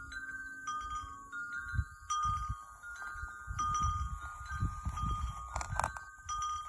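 Wind chimes ringing, several tubes struck one after another so their tones overlap and linger. A low rumble comes and goes underneath, and there are a couple of short clicks near the end.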